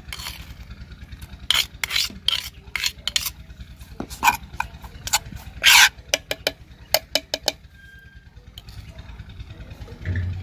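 Metal spoon stirring and scraping a spice paste of chopped chillies and ginger-garlic in a terracotta bowl, with irregular sharp clicks and scrapes of spoon on clay. A steady low hum runs underneath.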